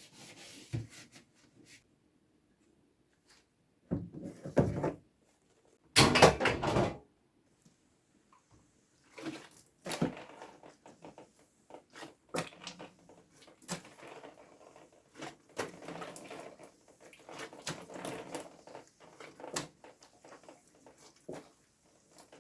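Fridge cleaning: a fridge's parts and contents being handled and wiped, with irregular knocks, clatters and rubbing. The loudest are two noisy bursts about four and six seconds in, then scattered knocks and scrubbing.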